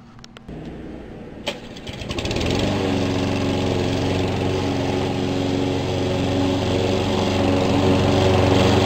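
Red walk-behind gas lawn mower starting: a sharp knock about a second and a half in, then the engine comes up to speed within a second or so and runs loud and steady under load while being pushed.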